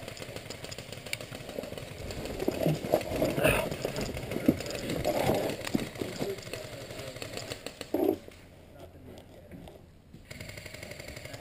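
Rustling and knocking from a player moving quickly across dry leaf litter with gear and camera jostling, with a sharper bump about eight seconds in, then quieter once he settles behind a barrel.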